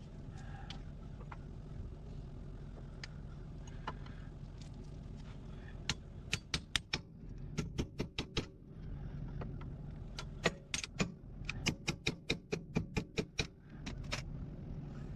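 Hand tools working metal at a Jeep Cherokee XJ's steering knuckle: runs of sharp metallic clicks, about four a second, starting about six seconds in, pausing briefly and then resuming, over a steady low hum.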